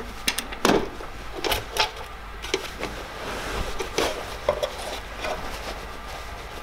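The latch and hinged lid of an old sheet-metal motorcycle toolbox clicking and knocking as it is opened, several sharp clicks in the first two seconds and a few more around four seconds in, with a cloth bundle rustling as it is pulled out of the box.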